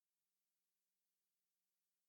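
Near silence: a gated pause with only a very faint steady hum.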